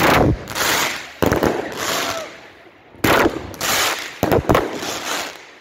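Xplode Double Deck Purple, a 36-shot 25 mm consumer firework battery, firing a rapid, uneven series of loud bangs, about ten in all. Each bang trails off quickly.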